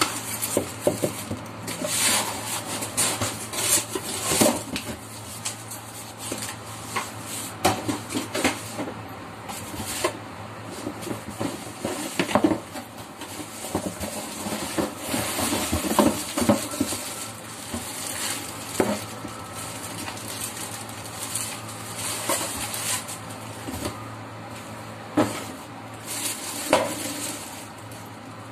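Plastic packaging bags crinkling and rustling as a new blender jar and parts are unwrapped, with irregular knocks and clinks of plastic parts against the cardboard box.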